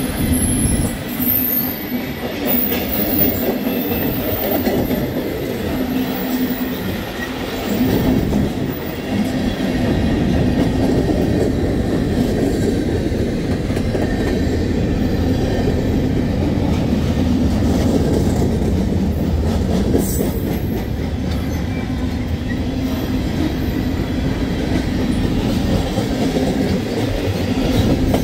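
A train running steadily by, its cars rolling past with a continuous low rumble and a steady hum.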